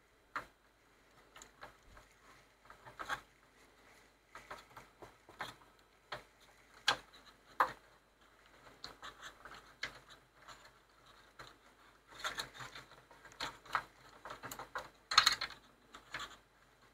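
Scattered small clicks, taps and scrapes of a replacement mains switch and its wiring being handled and fitted into place on a CRT monitor, with the loudest cluster of clatter about fifteen seconds in.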